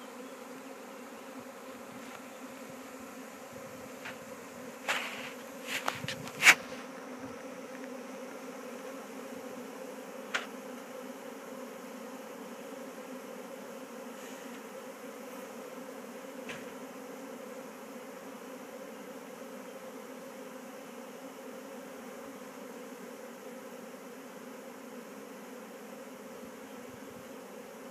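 A freshly hived swarm of honeybees buzzing steadily, a low even drone of many wings. A few brief sharp clicks sound about five to six seconds in, the loudest near six and a half seconds.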